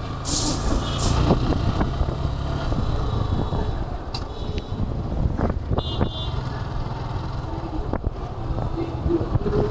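Road and engine noise of a motorcycle riding through city traffic: a steady low rumble with scattered small knocks. A short high horn beep sounds about six seconds in.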